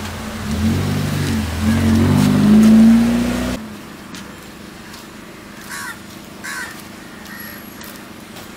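A motor vehicle's engine accelerating, its pitch rising, then stopping abruptly. After that, a quieter steady background of traffic with two short, harsh crow-like bird calls.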